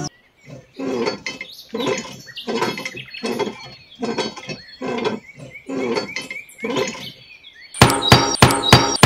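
Handle of a miniature hand pump squeaking with each pumping stroke, a bit more often than once a second. A little before the end, a run of sharp metallic clicks and clinks takes over, louder than the squeaks.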